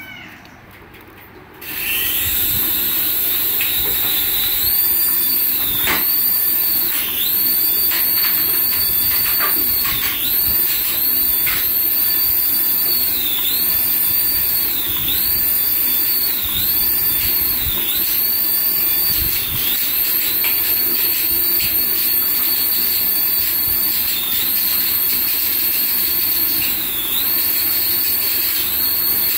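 High-pitched electric motor whine of a radio-controlled toy, starting loudly about two seconds in, its pitch repeatedly dipping and rising again as the throttle is worked.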